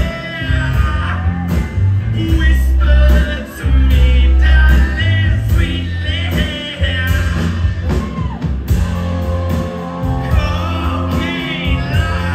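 Live band performing loudly, a lead singer over drums and guitars, with a heavy low end, as heard from the audience at a club concert.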